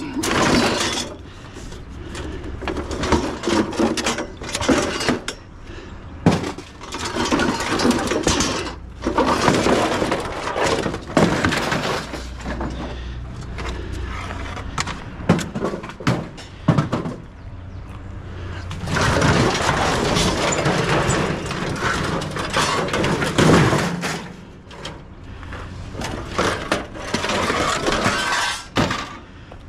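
Scrap metal parts from torn-apart air conditioners being thrown onto a pile: an irregular run of crashes and clatter, with short lulls between loads.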